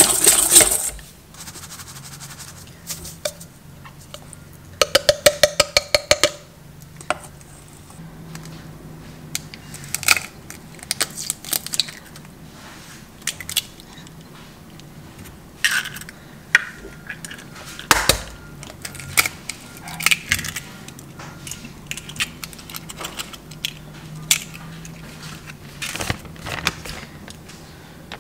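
A spoon clinking and knocking against a stainless steel mixing bowl while cookie dough is mixed. A fast run of strikes on the bowl comes about five seconds in, followed by scattered single clinks and taps.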